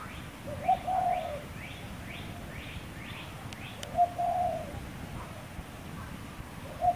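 A dove cooing, one short low phrase roughly every three seconds, three times in all. Behind it another bird gives a faint, quick series of rising chirps.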